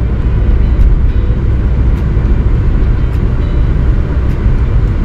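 Steady low rumble of cabin noise in a Mercedes-Benz S 400 d (W222) driving at road speed: road, tyre and drivetrain noise with no change in pace.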